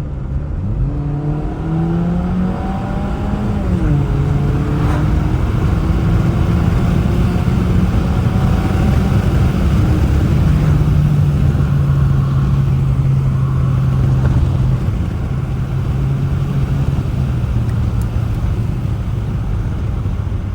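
Turbocharged four-cylinder engine of a Mk7 Volkswagen Jetta with an aftermarket intake, revving up under acceleration and dropping sharply in pitch at a gearshift about four seconds in. It then pulls up more slowly and settles into a steady cruise.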